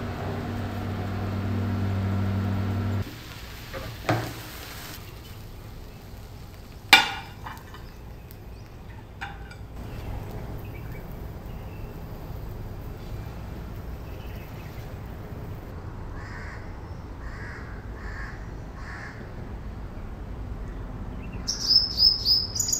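Induction cooktop humming steadily for the first three seconds, then a knock and a single sharp ringing clink about seven seconds in. Later, crows caw four times in quick succession, and near the end a small bird chirps loudly in high notes.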